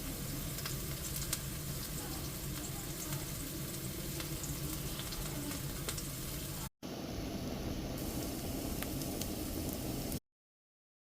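Paneer and vegetables sizzling steadily in a pan as they are stir-fried, with occasional light clicks. The sound breaks off for an instant about two-thirds through and stops dead shortly before the end.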